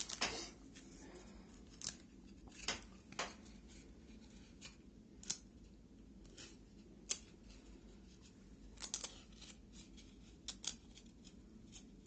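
Faint, scattered crinkles and clicks of a 2004/05 Pacific hockey card pack being opened and its cards handled. There are a dozen or so brief sounds, with a small cluster about nine seconds in.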